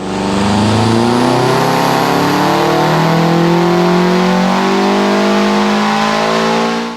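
Car engine and exhaust under acceleration, loud, the pitch climbing slowly and steadily as the revs rise. It starts and cuts off abruptly.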